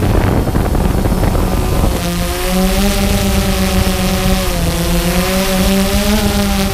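Quadcopter drone's motors and propellers humming steadily as heard from its onboard camera, the pitch wavering slightly, over wind rushing across the microphone. The hum stands out more clearly from about two seconds in.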